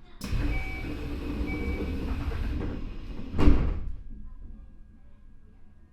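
The passenger doors of a Keio 9000-series electric train sliding shut, with two short high chime beeps about a second apart, ending in one loud thump as the doors close. Afterwards the car sits with a low, steady electrical hum.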